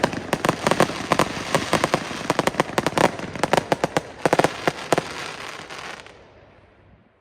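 Weco Hard Rock Overture, a 240-shot 20 mm firework cake, firing a rapid barrage of shots and bursts, several bangs a second over crackle. The firing thins out and stops about six seconds in, the noise dying away within another second as the cake burns out.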